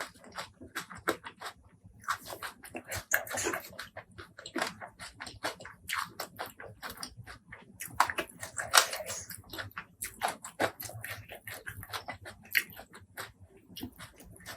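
Close-miked eating: rapid wet chewing and mouth clicks, with a few louder, longer bursts of chewing or slurping spread through.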